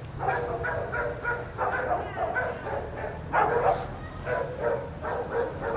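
Dogs barking in a rapid run of short barks, about three a second, over a steady low hum.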